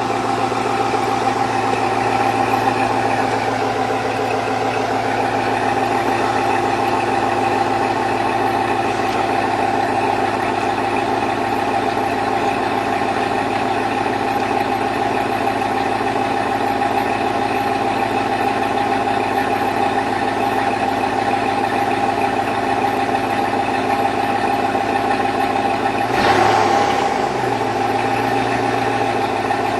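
Chevrolet Vortec 5.3 V8 idling steadily with a rhythmic knock, piston slap from a cold start. Near the end the engine is revved briefly, rising and falling once.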